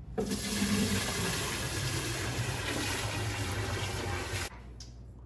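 Water poured from a five-gallon plastic bucket, splashing steadily into a bass boat's live well, until the pour cuts off suddenly about four and a half seconds in.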